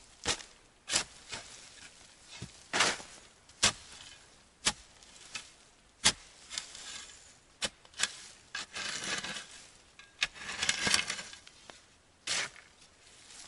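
Shovel digging into leaf-covered forest soil: sharp scrapes and strikes about once a second, with two longer rustling scrapes in the second half as earth and leaves are shovelled.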